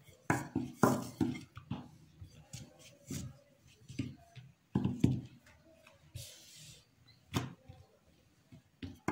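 Wooden rolling pin knocking and rolling on a hard countertop as a ball of dough is rolled out flat: a series of irregular knocks and taps, with a short hiss about six seconds in.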